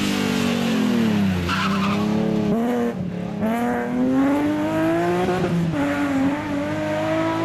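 Rally car engines running hard: the revs fall away over the first second or so as a car slows, then climb in repeated rising sweeps as it accelerates up through the gears, with a break near the middle where the sound cuts to another car.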